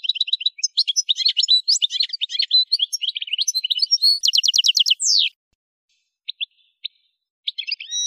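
Algerian goldfinch (Carduelis carduelis parva) singing a fast, twittering song with a quick trill about four seconds in that ends in a falling note. After a pause broken by a few single notes, it starts singing again near the end.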